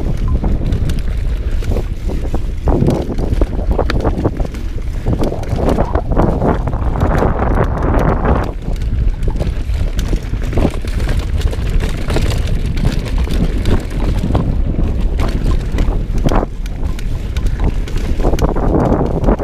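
Mountain bike rolling fast over a dirt singletrack: constant tyre and suspension rumble under wind buffeting the camera's microphone, with frequent small clicks and rattles from the bike.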